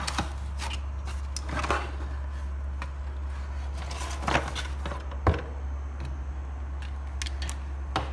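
Cardboard packaging being handled: scrapes, rustles and a handful of sharper knocks as the cardboard inserts are pulled out of the box and the chopper unit is lifted out.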